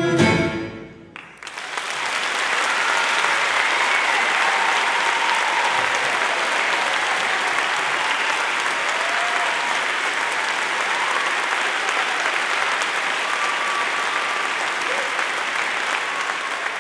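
The ensemble's last loud chord cuts off just after the start. About a second later a full audience breaks into steady applause that carries on to the end.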